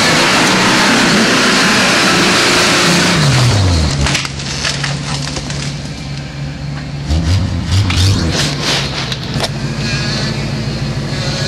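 Off-road 4x4 truck engine revving hard close by, its pitch falling about three seconds in. Then many sharp cracks and crunches as the tires roll over branches and sticks on the trail, with the engine running steadily underneath.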